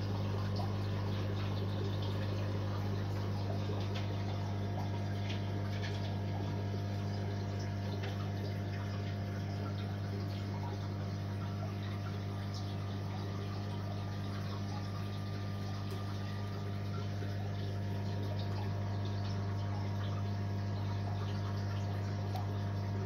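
Steady hum of a sumped aquarium's pump, with an octave line above it, under the continuous sound of water running and trickling through the tank's circulation. A few faint clicks come through the water noise.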